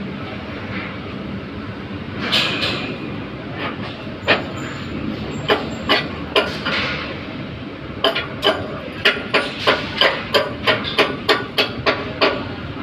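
Chipping hammer knocking slag off an overhead weld: a few scattered sharp strikes, then a quick run of about three to four strikes a second for some four seconds near the end, over a steady low hum.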